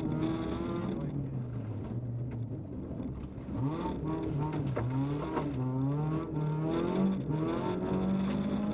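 VW Polo 1.4 16v rally car's four-cylinder engine, heard from inside the cabin. The revs fall as the car slows for a bend, then climb hard from about three and a half seconds in, with brief dips at gear changes as it accelerates away.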